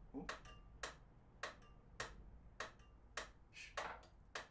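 Faint steady ticking of a pyramid-style metronome, about five ticks every three seconds (roughly 100 beats a minute), each tick sharp with a short ring.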